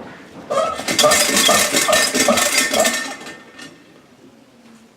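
Metallic jangling and clinking for about two and a half seconds, starting about half a second in: many quick strokes with ringing tones repeating several times a second, then fading out.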